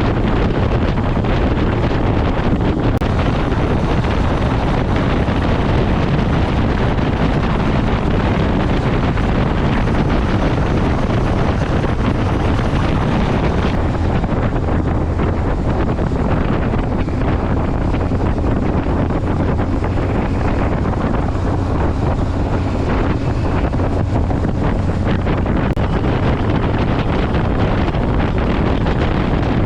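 Motorcycle riding at steady speed: heavy wind noise on the microphone over the low, steady running of the engine.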